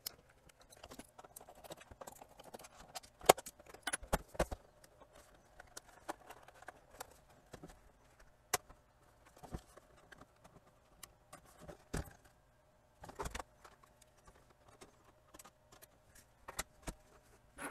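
Irregular sharp plastic clicks, snaps and knocks as the plastic case of a Sony DVP-FX980 portable DVD player is pried apart with a pry tool and handled. The loudest clicks come about three to four seconds in, with another cluster near the end.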